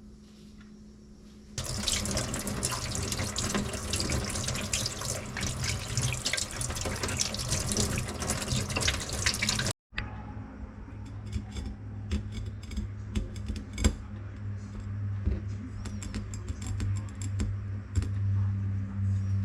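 Water running and splashing steadily, like a tap left on, starting about a second and a half in. After a sudden break near the middle, it runs on at a lower pitch with small clicks.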